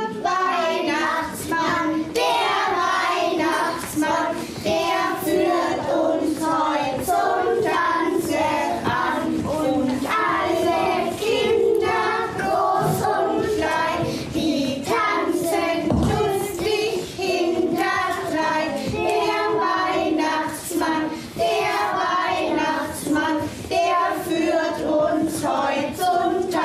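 A group of young children singing a song together, with short sharp beats keeping time throughout.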